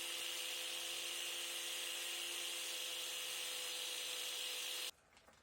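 An electric motor running steadily with a light whine and hiss, then stopping abruptly near the end.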